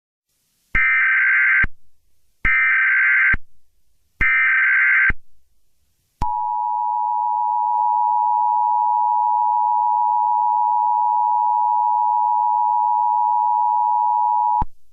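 Emergency Alert System SAME header: three bursts of buzzy data tones, each just under a second long, then the steady two-tone EAS attention signal held for about eight seconds before cutting off, announcing the start of a new alert.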